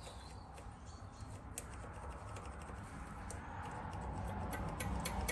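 Faint, light clicks of a hand working at the carburettor of a Villiers two-stroke lawnmower engine, coming more often near the end, over a low rumble.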